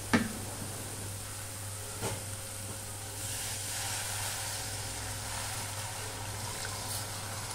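Two light clinks of a metal spoon against a steel kadhai, then from about three seconds in water is poured into the hot pan over the fried masala and okra, a steady pouring hiss with sizzling.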